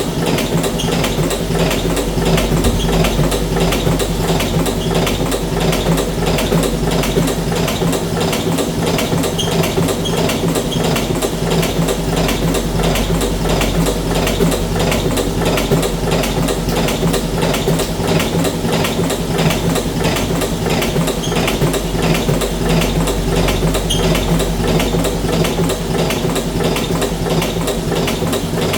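Electric cigarette filling machine running steadily: a constant motor hum with a fast, even mechanical clatter.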